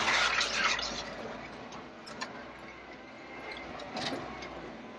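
Jeep driving slowly in first gear over a rocky dirt trail, heard from inside the cab: a low engine hum under a steady rumble of tyres and body noise, with a few light clicks and rattles.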